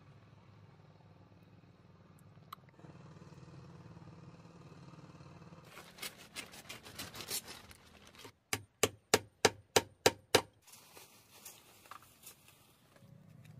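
Plastic tarp rustling and crinkling as it is handled, then a quick run of about seven sharp knocks, roughly three a second.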